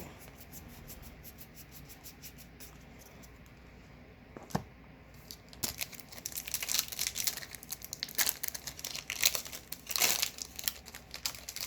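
A Magic: The Gathering booster pack's foil wrapper being torn open and crinkled, dense crackling from about halfway on, after faint ticks and one sharp click.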